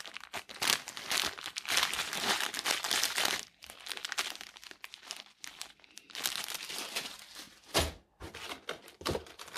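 Clear plastic parts bag packed with small metal screws and nuts crinkling as it is handled, the hardware shifting inside; the crinkling is strongest over the first three seconds and again around six seconds in. A single sharp knock comes near the end.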